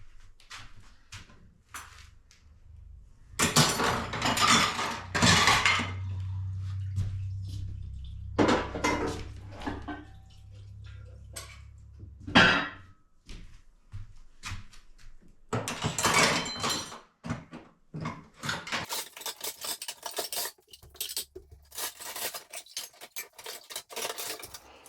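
Dishes and cutlery being handled in a kitchen: irregular clinks and clatters of crockery and silverware, with a few longer clattering bursts.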